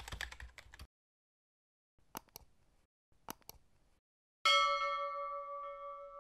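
End-card sound effects for a subscribe button and notification bell. A quick rattle of clicks at the start and two single clicks a little over two and three seconds in are followed by a bell chime, about four and a half seconds in, that rings on and slowly fades.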